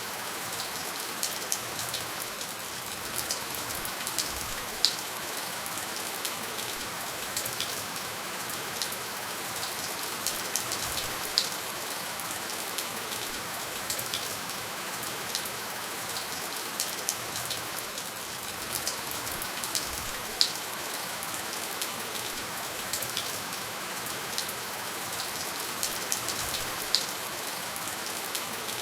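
Steady, gentle rainfall with no thunder: an even hiss of rain with scattered individual drops ticking sharply on a surface.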